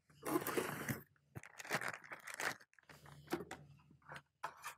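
Cardboard box and packaging rustling and scraping as a small electronic device is lifted out of it, then a string of small crackles and clicks as it is handled.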